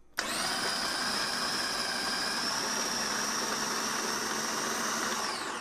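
Philips HR2505 Multichopper's electric motor switching on and running with a steady whine as its ChopDrop blade chops tomatoes. Its pitch falls briefly near the end as it spins down, then picks up again.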